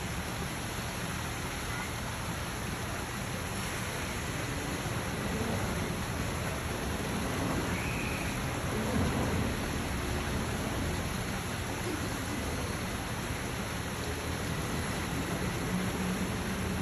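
Steady outdoor background hiss, even and without a clear single source, with a brief high chirp about eight seconds in.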